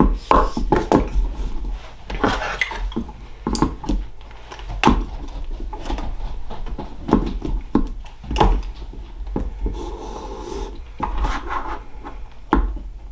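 Handling noise: irregular knocks, taps and rubbing as a phone is fitted onto and adjusted on a stand, with low rumbling bumps.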